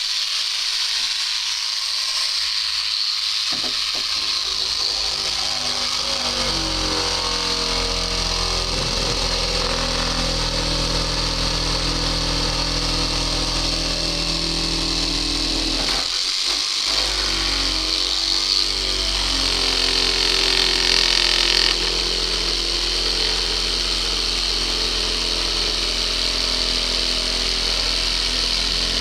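Electric drill running continuously, boring into a wooden door to fit a new lock; its motor note settles in after about six seconds and shifts briefly about sixteen seconds in as the load changes.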